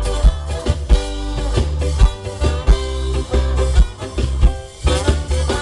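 Ska band playing live: a horn section of saxophone and brass holding notes over bass and a steady drum beat.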